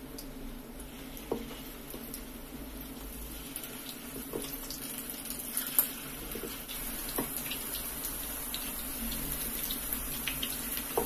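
Masala-coated prawns sizzling as they fry in hot oil in a pan, the sizzle slowly growing louder as more pieces are dropped in one at a time. Scattered sharp ticks and pops run through it, the loudest about six seconds in.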